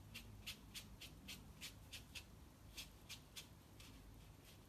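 Faint, quick brush strokes on watercolour paper: short swishing dabs, about three a second, thinning out near the end.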